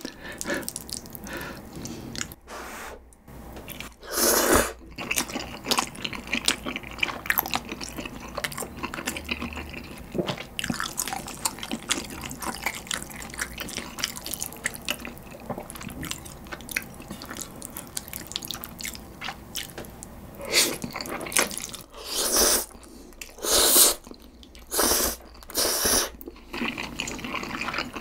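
Close-miked eating of creamy carbonara buldak stir-fried instant noodles: wet chewing and smacking. Louder slurps of noodles come about four seconds in and several times in the last eight seconds.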